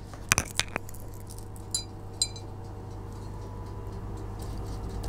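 A few light taps, then two short ringing clinks of a small glass bowl being handled, about two seconds in.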